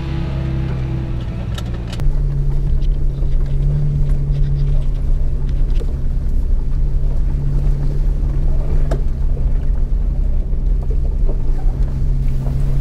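Toyota Tacoma TRD pickup crawling up a rough, rocky dirt trail: a steady engine drone with tyre and wind noise on the hood-mounted camera, and one sharp knock about nine seconds in.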